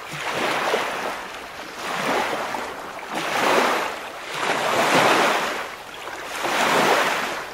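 Waves washing in, a rushing noise that swells and fades about five times, roughly every second and a half.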